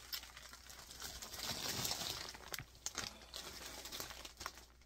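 Large silver plastic mailer bag crinkling and rustling as it is handled and lifted, loudest about two seconds in, then a few sharp crackles.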